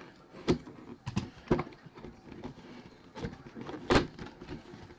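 Cardboard collectibles box being handled and opened by hand, its seal broken: about five sharp clicks and taps, the loudest about four seconds in.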